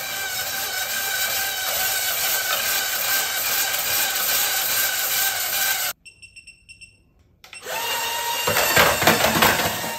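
Small DC motor and plastic gearing of a skeleton grinding-mill toy running steadily with a whine, overdriven from a 25 V bench supply. It cuts out about six seconds in, then comes back louder on 30 V with rapid clattering as the plastic skeleton rattles itself apart.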